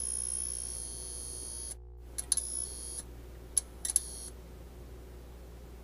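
Electronic glitch sound effects: clusters of sharp clicks with a thin, high whine, in short bursts over a faint low hum. The whine stops with a brief dropout just under two seconds in, then two more bursts of clicks and whine follow.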